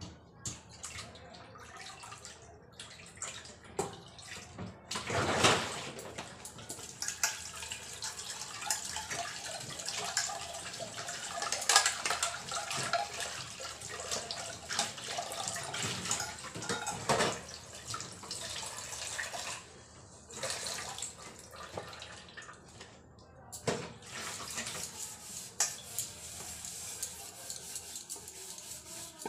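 Tap water running into a steel pot and a stainless steel sink while dishes are washed by hand, with clinks and knocks of steel utensils against each other and the sink. The water eases off briefly about two-thirds through, then runs again.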